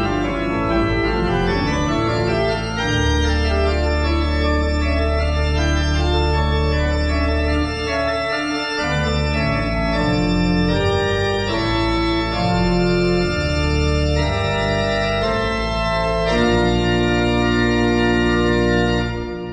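Organ music playing sustained chords that change every second or two over a deep held bass.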